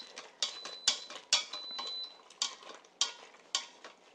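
A spoon stirring cooked penne in the stainless steel inner pot of an Instant Pot, scraping and knocking against the pot in irregular strokes about every half second as the stuck-together pasta is broken up.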